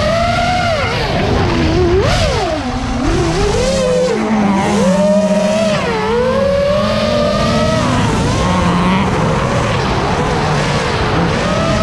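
An FPV quadcopter's motors whine, their pitch swooping up and down again and again with the throttle, over the engine of a Mk II Ford Escort being driven hard on the track.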